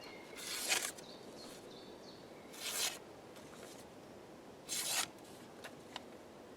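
A folding knife's tanto blade slicing through a sheet of paper in three short strokes, each a brief papery swish, as a check of the edge's sharpness. The blade still cuts the paper cleanly.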